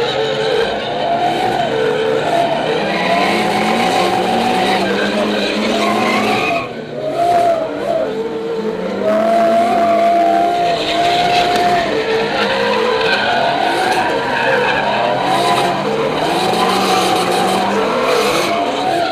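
Nissan S15 Silvia's turbocharged 2JZ-GTE straight-six revving up and down hard through a drift, with tyres squealing and skidding, heard from inside the cabin. The engine note dips briefly about six and a half seconds in, then climbs again.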